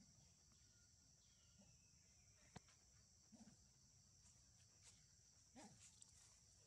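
Faint, steady high-pitched drone of insects, with a few soft clicks and short faint calls scattered through it.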